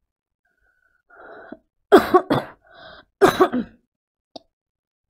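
A woman coughing: a breath in, then two bouts of loud, hard coughs about a second apart, each of two or three coughs, with a breath drawn between them.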